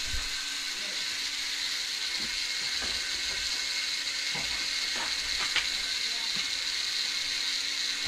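Faint, irregular knocks of a heavy iron bar striking the top of a plastered brick wall to break it down, about half a dozen blows under a steady hiss.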